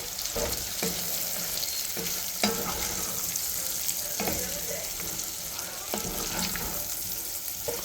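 Sausage, bacon and onion sizzling in a pot while being stirred, with a steady frying hiss and now and then a short clink or scrape of the stirring utensil against the pot.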